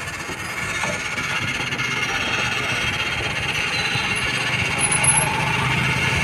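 A motor vehicle engine running, slowly getting louder.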